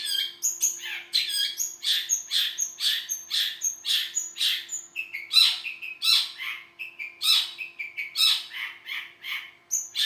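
Long-tailed shrike (cendet) singing a continuous run of short, harsh, scratchy notes, about two a second.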